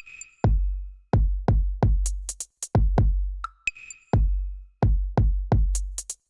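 Background electronic music: a drum-machine beat with deep, booming bass-drum hits and sharp clicking percussion.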